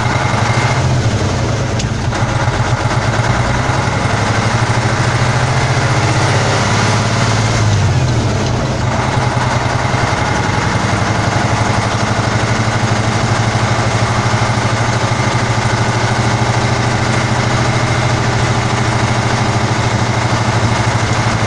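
Praga V3S military truck's air-cooled six-cylinder diesel running under way, heard from inside the cab, with the engine note shifting about eight seconds in.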